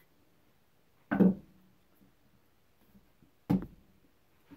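Heavy wooden frame boards knocking down onto a wooden workbench twice, about a second in and again about three and a half seconds in; the first knock rings briefly.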